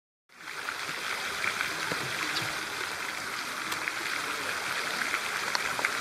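Steady rushing noise of running water, with scattered faint short ticks over it.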